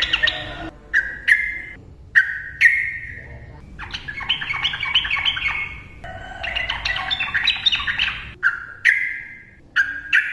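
Sooty-headed bulbul singing in rapid 'ropel' style: short harsh calls alternating with two longer stretches of fast chattering notes, one about four seconds in and one about six to eight seconds in.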